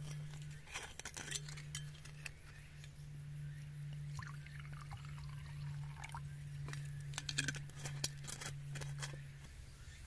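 A few sharp clinks and taps of small hard objects, over a steady low hum that stops shortly before the end.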